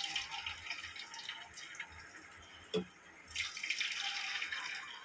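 Batter-coated potato pieces sizzling and crackling as they deep-fry in hot oil in a kadhai. The sizzle is louder near the start and swells again about three and a half seconds in.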